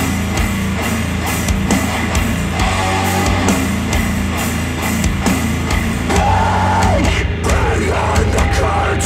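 Death metal music playing through KEF Q150 bookshelf speakers, switching to Polk Audio Reserve R200 bookshelf speakers partway through.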